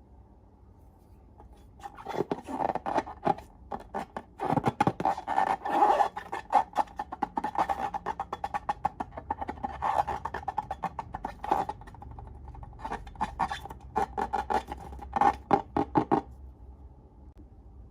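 Slime being squished and worked by hand, giving a quick, uneven run of sticky clicks and pops that starts about two seconds in and stops near the end.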